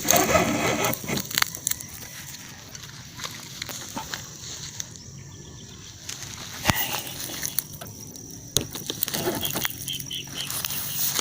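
A bird hooked on a frog fishing lure flapping its wings and struggling, loudest in a burst of flapping over the first second, then rustling with scattered sharp clicks.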